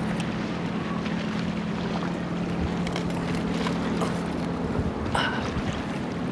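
A steady low hum under a wind-like rushing noise, with a few scattered small clicks.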